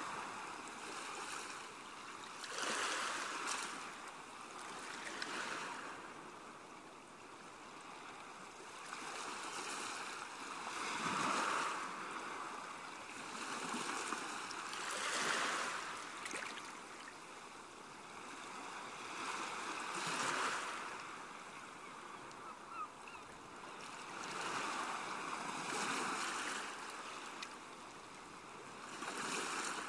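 Ocean surf: waves breaking and washing in, the rushing noise swelling and fading every few seconds.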